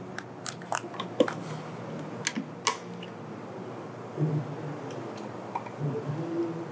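Squeeze clamp and hand tools worked against the aluminium extrusion frame of a belt conveyor: a string of sharp, irregular clicks over the first three seconds or so.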